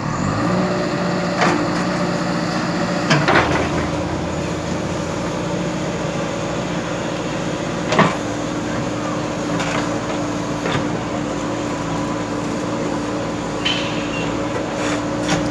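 JCB backhoe loader's diesel engine running steadily, with a few sharp knocks and clanks from the working machine, the loudest about eight seconds in.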